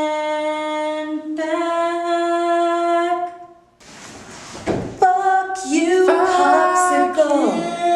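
A man singing unaccompanied and deliberately off-key, holding a long drawn-out note that steps up in pitch about a second and a half in, then breaking off about three seconds in. After a short hiss of noise, the singing starts again about five seconds in with sliding, wavering notes.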